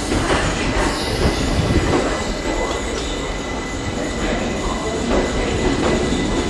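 Two coupled Class 455 electric multiple units pulling away from the platform: a steady rumble of wheels on rail, with a thin high tone held over it.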